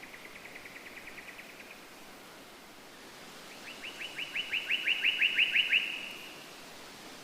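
A songbird singing two rapid trills of short repeated notes, a fainter one at the start and a louder one about midway, over a steady background hiss.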